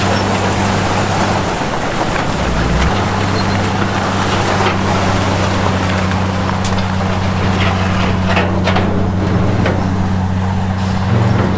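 Diesel engine of heavy earthmoving equipment running steadily under load, with a few sharp clanks in the second half.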